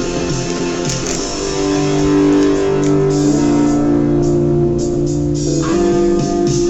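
Background music led by guitar, with sustained notes and a change in the chords near the end.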